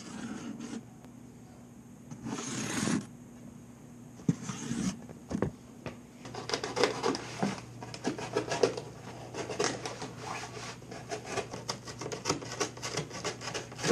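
Cardboard box being handled and scraped: a few separate rasping strokes at first, then a dense run of short crackly scratches and rubs through the second half.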